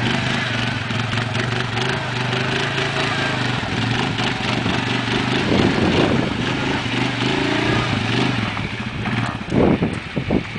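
ATV engine running at idle, steady, with its revs shifting up and down a little past the middle. A few dull thumps near the end.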